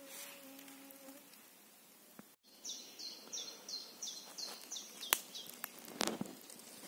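A flying insect buzzes with a steady hum for about the first second. After a brief gap, a songbird sings a fast run of about nine high, falling notes, about three a second. Two sharp clicks follow near the end.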